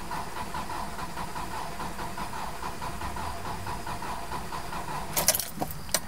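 Subaru EJ25D 2.5-litre flat-four being cranked over by the starter motor with the ignition module unplugged, so it spins evenly without firing. No knock is heard while it only cranks. The cranking stops about five seconds in, followed by a few clicks.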